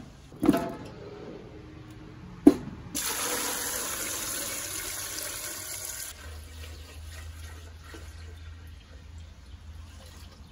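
Two thumps as beets drop into a stainless steel stockpot, then water pouring into the pot over the beets for about three seconds, stopping suddenly.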